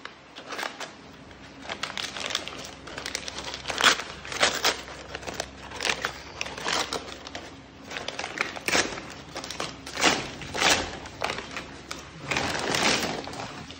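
Stiff brown paper courier bag cut open with scissors and handled: irregular crinkling, rustling and tearing of paper, with short crisp snips and crackles.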